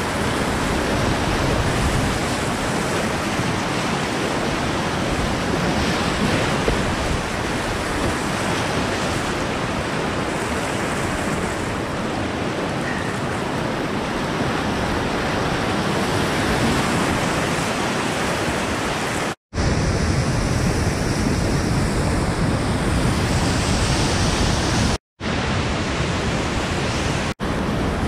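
Whitewater rapids rushing loudly and steadily around a kayak. The sound cuts out completely for a moment twice, about two-thirds of the way in and again near the end.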